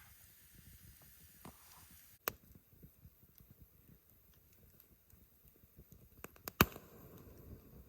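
Campfire crackling faintly, with a sharp pop about two seconds in and a louder cluster of pops near the end.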